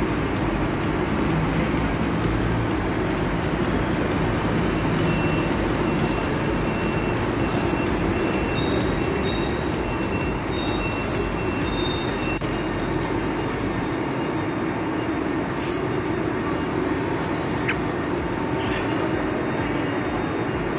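Marcopolo Paradiso 1800 DD double-decker coach's diesel engine running steadily. Faint high-pitched tones come and go in the middle.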